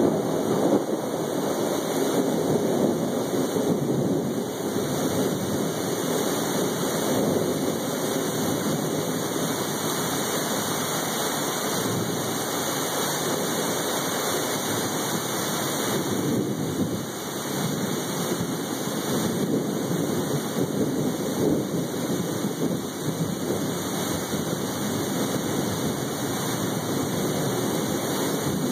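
Steady rain pouring down in a thunderstorm.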